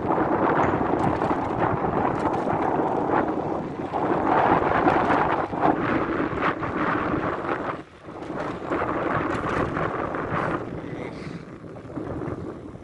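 Wind buffeting the microphone while riding an e-bike, a loud rushing rumble that rises and falls in gusts and dies down near the end.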